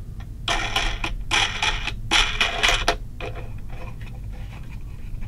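Wing nut being spun by hand down the threaded centre shaft of a vibrating case tumbler, inside its plastic bowl: three scraping bursts in the first three seconds, then faint ticks as it is snugged down finger tight.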